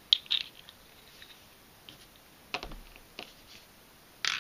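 3D-printed plastic puzzle pieces clicking and tapping as they are handled and fitted together, in a few scattered clicks with quiet between them.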